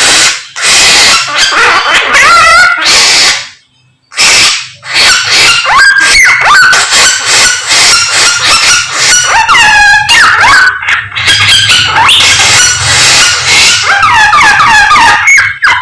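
A samyong songbird singing loudly and continuously: a fast, varied stream of sweeping whistles and chattering trills, with a brief pause about four seconds in.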